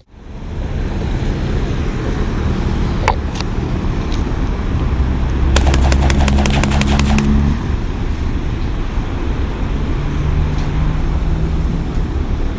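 A car driving, heard steadily as low engine and road rumble, which swells for a couple of seconds near the middle. A rapid run of ticks comes through at the same time, and a couple of single clicks come a few seconds earlier.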